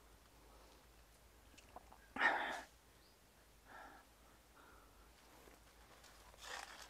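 Mostly quiet, broken by a few short breathy bursts like sniffs or sharp exhales, the loudest about two seconds in and two fainter ones later.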